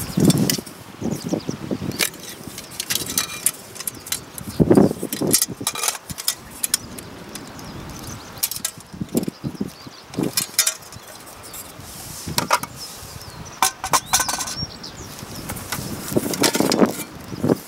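Aluminium parts of a Swiss army volcano stove clinking and scraping together as they are handled and fitted into one another, with scattered light metal taps and a few louder low thuds.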